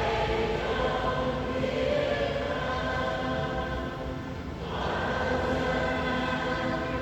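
Rope-pulled church bells pealing, several bells' overlapping tones hanging in the air; a fresh stroke sets them ringing again a little past halfway.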